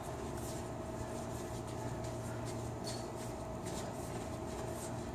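A steady background hum with a few faint, short scuffs and taps scattered through it, from boxers moving on a concrete floor. There is no loud punch impact.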